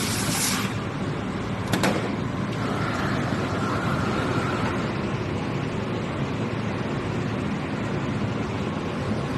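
Mini laser cutting machine running with a steady mechanical noise. There is a hiss of air at the start, a sharp click about two seconds in, and a faint higher tone for a second or two in the middle.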